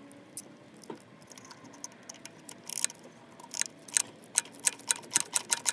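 Hand ratchet with a T20 Torx socket clicking as it backs out the throttle position sensor's screws: a few scattered clicks, then from about three and a half seconds in a steady run of about five clicks a second.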